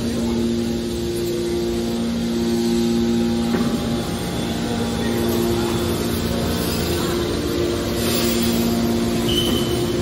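Hydraulic scrap-metal baler's power unit running: electric motors and hydraulic pumps giving a steady mechanical drone with a humming tone that fades and comes back. A brief high beep sounds just before the end.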